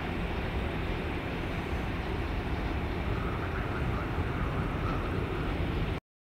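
Boeing 737-700 jet airliner's twin CFM56-7B turbofan engines at takeoff power as it climbs out, a steady low rumbling jet noise heard from the ground. It cuts off suddenly near the end.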